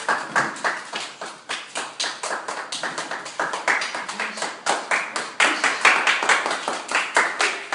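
A small group of people clapping their hands continuously, with uneven claps several a second.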